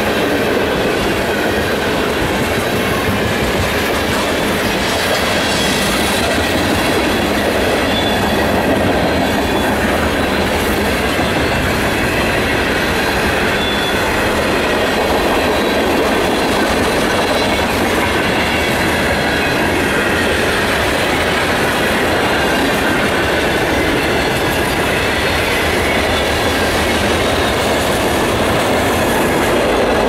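A CSX freight train's cars rolling steadily past: a continuous rumble and clatter of steel wheels on the rails, with thin high-pitched wheel squeal running through it.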